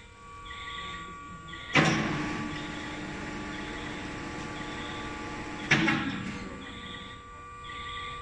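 Self-propelled electric scissor lift raising its platform: a steady whine from the hydraulic pump drive under a repeating high beep about once a second. About two seconds in and again about six seconds in, a sudden loud burst of rushing noise fades over a second or so.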